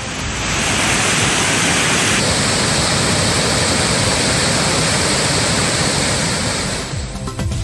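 Floodwater of a river in spate rushing over rocky falls and through a submerged walkway railing: a loud, steady rush of water that fades near the end.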